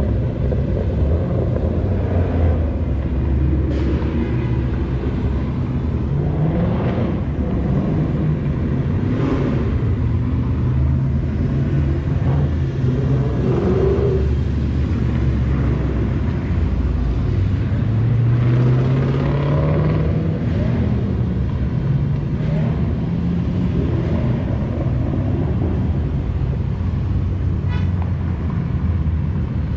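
Ford Mustangs driving past one after another, their engines and exhausts rumbling steadily. Twice, about a quarter of the way in and again past the middle, an engine rises in pitch as a car accelerates by.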